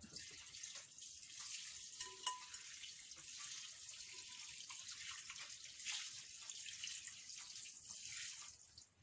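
Boiling water being poured over dry rice sticks (bihon) to soak and soften them: a steady, fairly faint pour that stops near the end.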